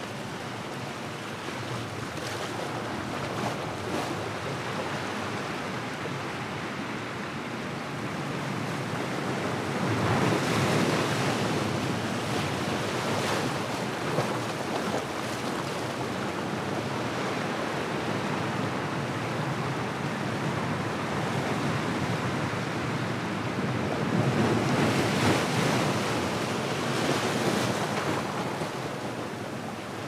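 Small ocean waves washing in over a rocky shore, foaming and draining around the rocks in a continuous rushing wash. It swells louder twice, about a third of the way in and again near the end, as larger sets come in.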